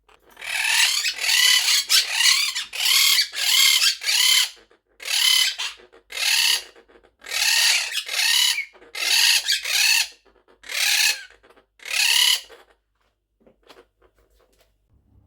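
A parrot calling loudly and repeatedly: more than a dozen short calls, each about half a second long, in a steady run that stops near the end.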